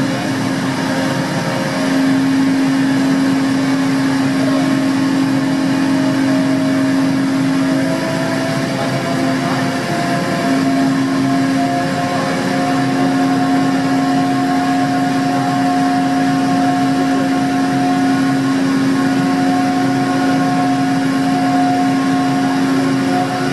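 Ferry Salish Eagle's engines and deck machinery running as the ship pulls away from its berth: a steady low hum with a higher tone that rises slightly partway through and then holds, over a broad rushing noise on the open car deck.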